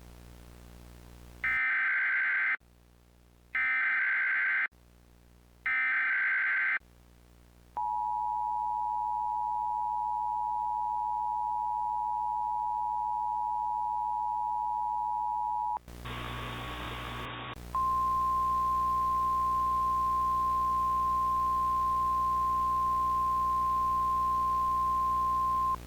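Emergency Alert System tones: three short bursts of SAME digital header data screech out, then the two-tone attention signal sounds steadily for about eight seconds. After a brief noisy burst, a single steady NOAA Weather Radio warning alarm tone holds for about eight more seconds.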